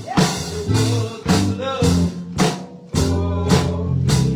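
Live gospel band music with a steady beat: held bass notes under drum hits and guitar.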